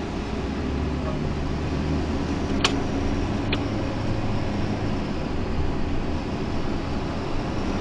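Vehicle engine and road noise heard from inside the cab while driving at low speed: a steady hum with low engine tones. Two sharp clicks come a little under a second apart near the middle.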